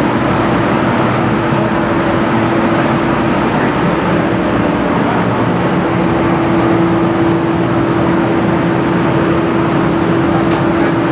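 Steady hum with an even rushing, air-like noise inside a passenger railcar, the car's ventilation and onboard equipment running, with one steady tone held throughout.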